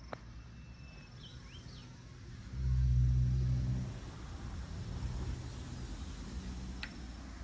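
A vehicle engine runs with a low, steady hum. It swells louder for about a second some two and a half seconds in, then settles back. A bird chirps briefly twice.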